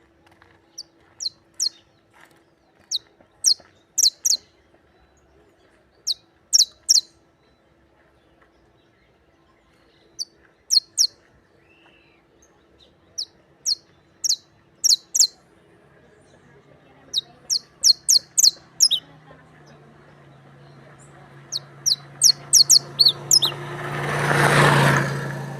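Criollo canary giving short, sharp, high chirps in quick clusters of two to five, with pauses of a second or more between clusters. Near the end a louder noise with a low hum swells up and dies away under the chirps.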